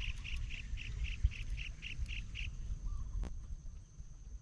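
Rhythmic high-pitched chirping calls from an animal, about four a second, stopping about two and a half seconds in, over a faint steady high tone and low rumble; a single sharp click comes a little after three seconds.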